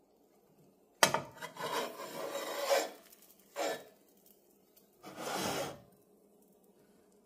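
A spatula scraping across a frying pan in three bouts: a sharp start about a second in and a longer scrape of about two seconds, then a short scrape, then another just past the middle.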